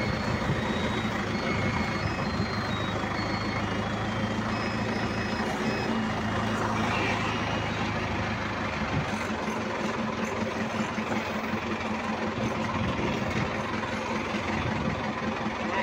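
Forklift engine running steadily as the forklift drives along.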